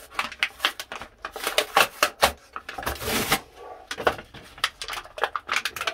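Plastic blister packaging crinkling and crackling as it is pulled and torn open by hand, a fast irregular run of sharp clicks and rustles.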